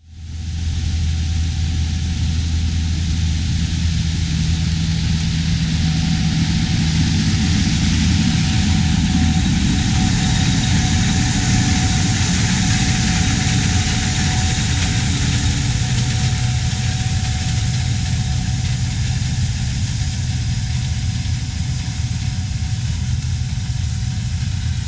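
Large diesel harvest machinery, a combine or a tractor with grain cart, running steadily: a low engine hum under a broad, even hiss.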